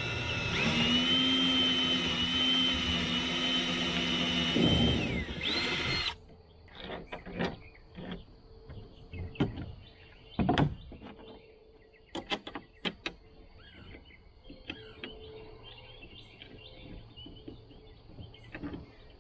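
Cordless drill boring a bolt hole through a pine canoe yoke, its motor whining at a steady pitch, then slowing and stopping about five seconds in. After that come scattered light knocks and clicks as clamps and tools are handled.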